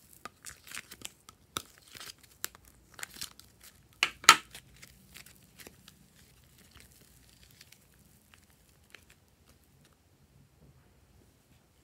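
Soft modelling clay being squeezed and pulled apart by hand, a crackly, crinkly tearing sound of many quick small snaps, with two louder snaps about four seconds in. It thins out and is nearly gone in the second half.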